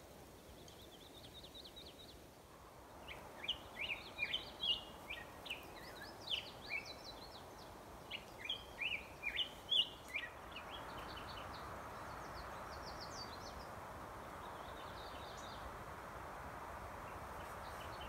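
Small birds chirping in quick, sharp notes, busiest in the first half. From about ten seconds in, a soft, steady rushing of a shallow creek running over rocks takes over.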